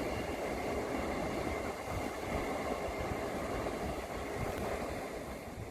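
Express train running through on the track: a steady rumble of wheels on rails.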